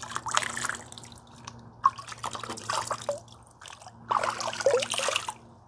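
Rainwater in a garbage can being scooped up by hand and let fall back, splashing, trickling and dripping into the water in about three bouts.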